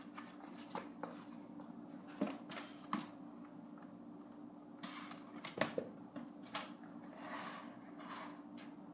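Cardboard knocking and scraping against a doggy door as a dog tries to push it through, in scattered light knocks with one sharper knock about five and a half seconds in. A steady low hum runs underneath.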